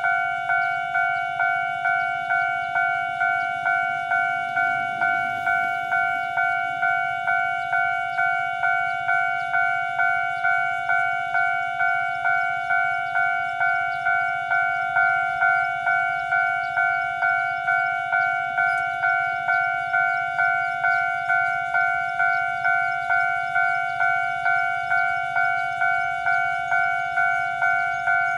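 Taiwan Railway level crossing warning bell ringing in an even, repeated ding-ding, each strike leaving a held ringing tone, warning that a train is approaching.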